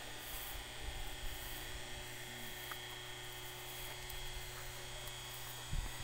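A steady low hum with irregular low rumbling, typical of wind buffeting a phone microphone, over a faint hiss.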